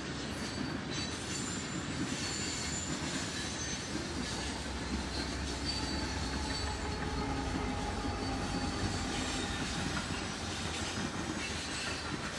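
Freight train rolling past with steady wheel-and-rail noise and thin, high wheel squeal. A deeper diesel rumble swells in the middle as mid-train locomotives go by.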